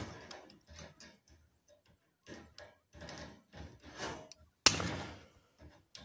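Tin snips cutting galvanized welded wire mesh: scattered small clicks and rattles of the mesh, with one sharp, loud snap of a wire being cut about five seconds in.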